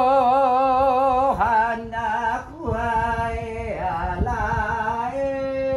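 A Hawaiian blessing chant (oli) by one voice, holding long notes with a wavering vibrato. It comes in several phrases, each broken off by a short pause.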